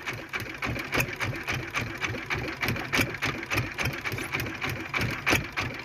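Small wooden fishing boat's engine idling with a fast, even knocking clatter.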